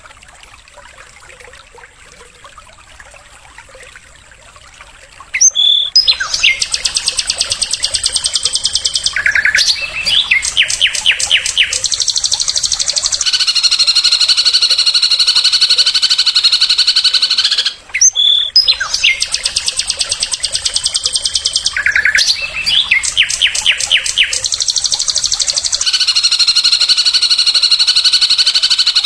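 Songbird song, sikatan-type flycatcher, from a recording: a high opening note, quick runs of sharp notes, then a long, fast, buzzy trill, with the whole phrase repeated. It starts about five seconds in after a faint hiss.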